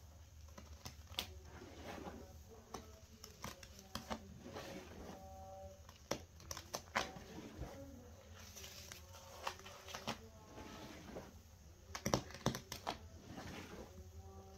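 Gloved hands hand-mixing a thick, foamy soap paste of dish soap and detergent powder in a plastic tub: irregular wet squelches, crackling foam and sharp clicks, with a few brief squeaks about five seconds in.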